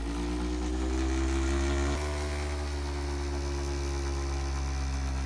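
Electric massager motor humming steadily, settling into its speed over the first second, with a slight dip about two seconds in.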